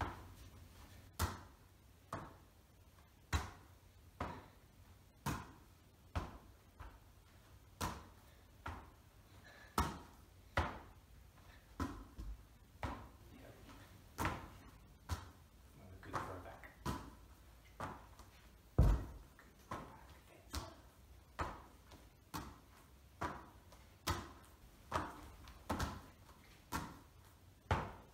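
Quick series of soft thuds from a football striking latex-palmed goalkeeper gloves in a catching drill, about one a second, with one heavier thump about two-thirds of the way through.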